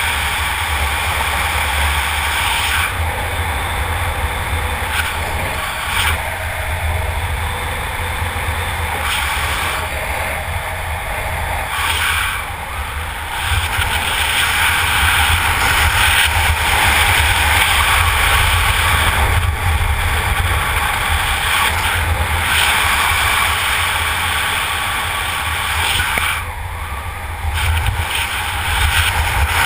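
Wind rushing over a helmet-mounted camera's microphone during a parachute canopy descent: a steady, loud rush that eases briefly twice, about twelve seconds in and again near the end.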